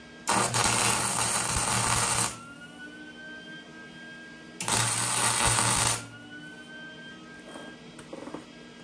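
Two tack welds with an electric arc welder, each a steady hiss over a low buzz, the first about two seconds long and the second about a second and a half, tacking a steel limit-strap mount in place. A few faint clicks follow near the end.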